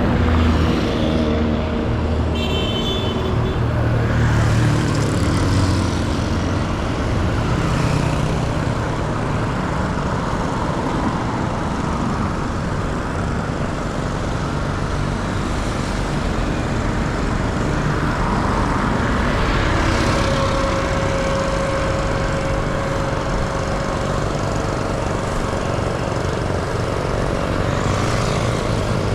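Street traffic: vehicle engines running close by over a steady hum of road noise, with a held higher tone lasting a few seconds about two-thirds of the way through.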